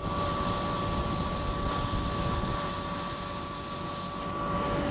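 Red-hot steel bar plunged into a can of quench water, sizzling and hissing steadily, then dying away about four seconds in. The end is being quenched so that only the flat section stays hot for twisting. A steady hum and low rumble run underneath.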